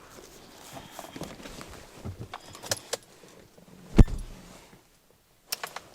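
Car keys jangling, with small clicks and knocks, and one heavy thump about four seconds in.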